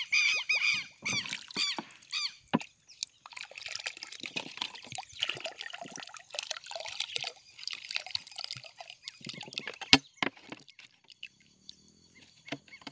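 Water sloshing, trickling and dripping in a plastic bottle fish trap as it is tipped and shaken to let the last small fish out into the water. There is one sharp tap about ten seconds in.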